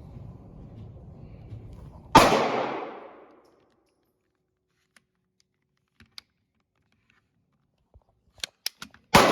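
Two pistol shots, one about two seconds in and one near the end, each followed by about a second of echo. Between them come a few small clicks.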